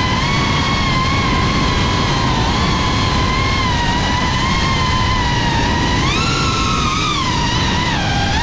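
FPV cinewhoop drone's motors and propellers whining steadily as it flies, with a low rushing noise underneath. The whine rises in pitch with a burst of throttle about six seconds in, then drops back and dips below its cruising pitch just before the end.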